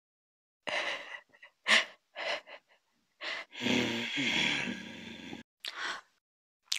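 A string of short, breathy vocal sounds, then a longer breathy vocal sound that wavers in pitch, starting about three and a half seconds in and lasting nearly two seconds.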